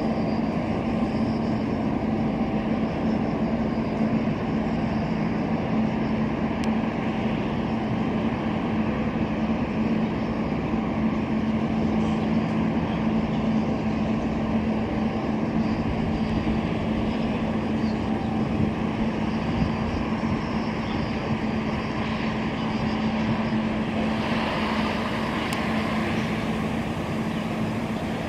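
Steady drone of ship diesel engines, a constant low hum over a rumble, with a little more hiss coming in near the end.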